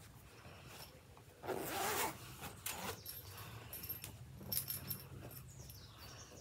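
A zipper being pulled open along the top of a fabric toiletry bag, one longer zip about a second and a half in, followed by shorter zipping and handling sounds as the bag is opened out.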